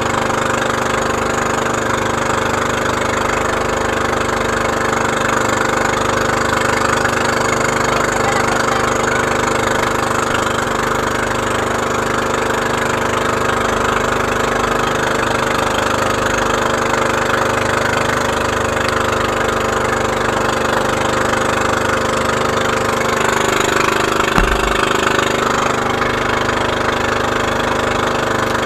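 Engine of a motorized outrigger boat (bangka) running steadily under way, over a constant rush of wind and water. The engine note shifts slightly about three-quarters of the way through, with a single thump just after.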